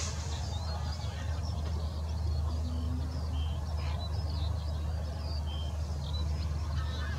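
Background birds chirping in many short, scattered calls over a steady low rumble.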